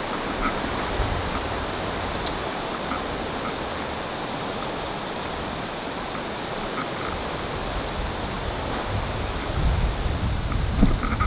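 Wind on the microphone: a steady rushing hiss, with heavier low buffeting from about nine seconds in.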